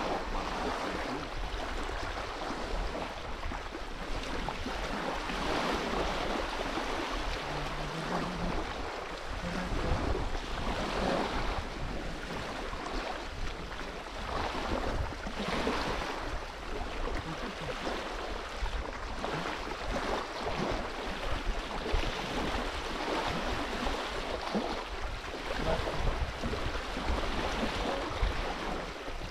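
Small waves washing against a reservoir shore, with wind buffeting the microphone; the wash swells and eases irregularly every few seconds.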